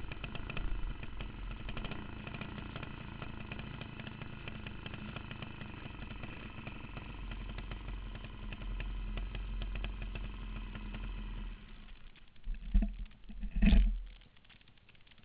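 Racing kart engine running at low speed as the kart rolls in, then cut off suddenly about three-quarters of the way through, followed by two loud thumps.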